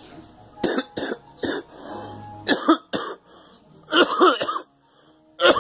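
A person coughing repeatedly: three single coughs about a second in, then tighter bouts of several coughs each, the loudest around two and a half and four seconds in, with one more cough near the end.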